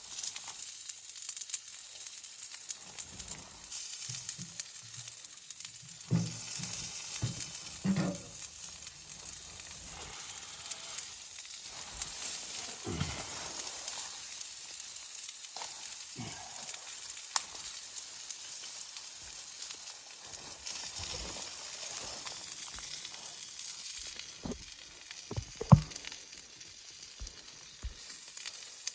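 A steady sizzling hiss with scattered knocks and clatters, one sharp knock near the end.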